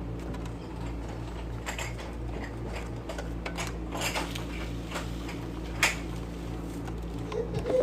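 Vacuum cleaner running with a steady hum, irregular clicks and crackles as grit and debris rattle up into it, one sharper crack about six seconds in.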